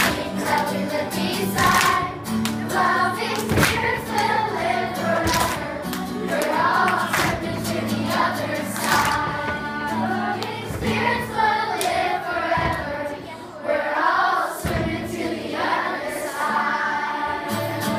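A group of children singing together over a played-back accompaniment with a steady bass line, with hand claps scattered through.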